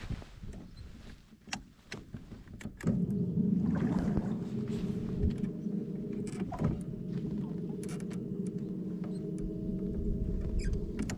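A few light clicks, then about three seconds in a motor starts a steady, even hum that runs on unchanged.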